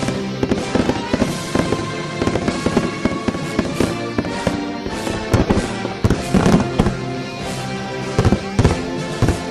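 Fireworks exploding in rapid, irregular bangs, with louder clusters about halfway through and again near the end, over music playing.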